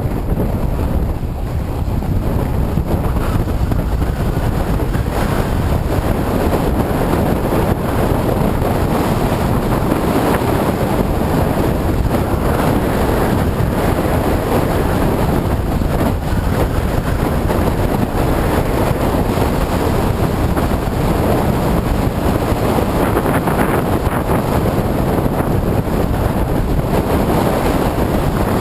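Loud, steady wind buffeting on the microphone of a GoPro in an open skeleton housing: a deep, unbroken rumble with no let-up.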